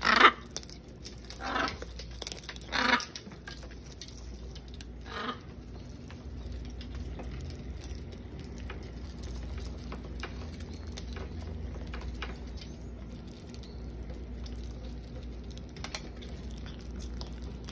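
Blue-and-yellow macaws feeding from a plastic tub of fruit: a few short, loud squawks in the first three seconds, then a long run of soft beak clicks and nibbling as they bite into the fruit.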